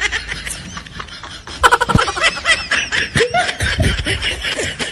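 Laughter: snickering and chuckling in many short bursts, getting louder about one and a half seconds in.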